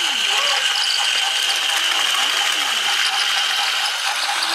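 Battery-powered Trackmaster toy engine (Percy) running along plastic track: its small motor and gearbox whir steadily at a high pitch, with a light, evenly repeating clicking.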